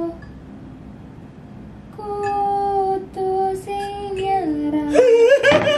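A simple melody picked out note by note on a phone piano app after about two seconds of quiet: steady held notes stepping mostly downward. A singing voice joins near the end.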